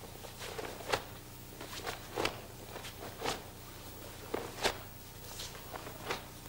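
Bare feet stepping and sliding on a stage floor and a karate gi's cloth snapping with each technique of a Kyokushin kata: a string of short sharp snaps and soft thuds, roughly one a second, over a faint steady hum.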